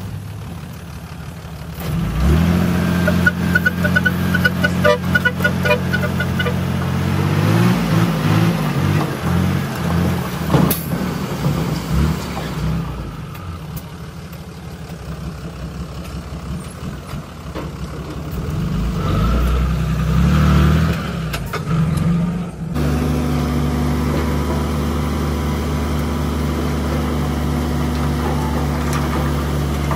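UD dump truck's diesel engine running hard to drive the hydraulic hoist as the loaded bed tips up and dumps its soil. The revs step up about two seconds in, waver and ease off through the middle, rise again, then settle suddenly to a steady run near the end.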